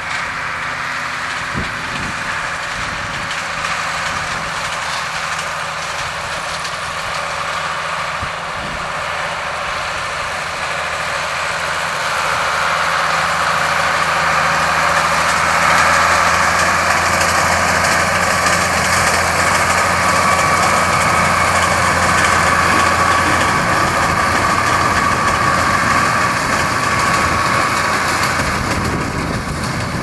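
Ford 7840 tractor's diesel engine working steadily under load as it pulls a Vicon MP800 big square baler, with the baler's machinery running alongside it. The sound grows louder about twelve seconds in as the outfit comes close.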